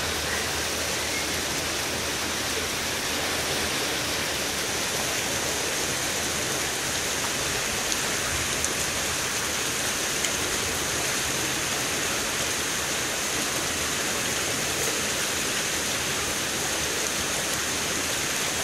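Water rushing steadily over the concrete steps of a salmon fish ladder, a constant unbroken cascade.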